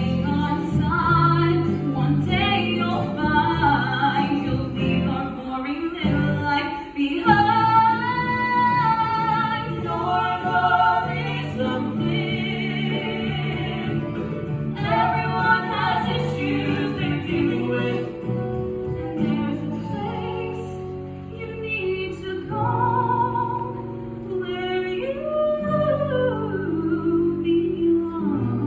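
A song from a stage musical: singing over instrumental accompaniment.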